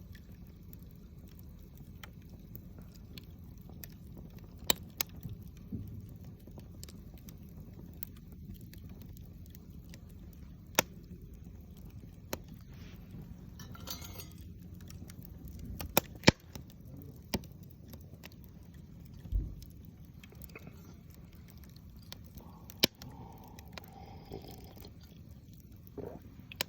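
Wood fire crackling, with sharp pops at irregular intervals, a few much louder than the rest, over a low steady rush.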